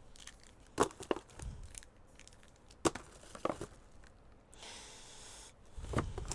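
Packaging of a cardboard subscription box being handled and opened: a few sharp clicks and crackles, then a tearing sound lasting about a second, and a couple of soft thumps near the end.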